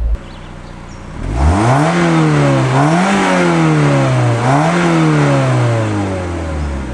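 2008 Mazda MX-5 Miata's 2.0-liter four-cylinder engine heard at its twin exhaust tips. It runs at idle, is revved three times from about a second in, each rev climbing and dropping, then falls back toward idle near the end.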